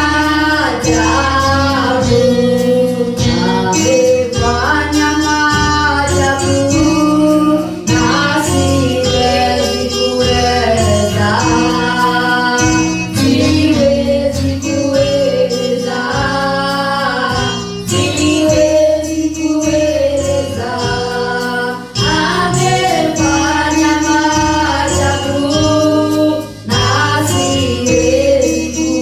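Gospel praise-and-worship singing: several voices sing a song over a band, with a steady low bass line underneath.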